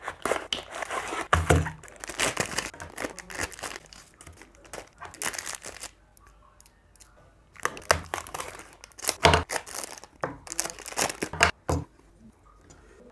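Toy packaging being opened by hand: a cardboard box and clear plastic bags crinkling and tearing in two spells of handling, with a brief lull between and a couple of dull knocks.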